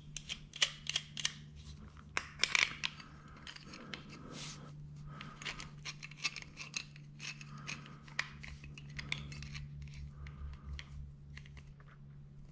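Irregular light metallic clicks and scrapes of hand-tool work as a rivnut is fitted with a hand setting tool, over a steady low hum.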